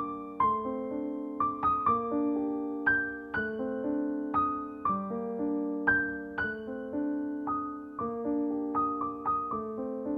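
Background piano music: a gentle melody of single struck notes over sustained chords.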